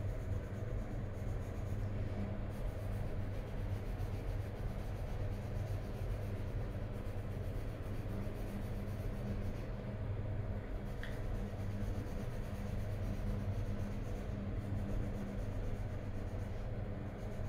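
Coloured pencil scratching back and forth on paper as an area is shaded in, over a steady low hum.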